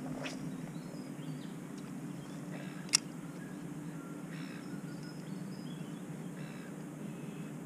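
Faint bird calls over a steady low hum of outdoor background noise, with one sharp click about three seconds in.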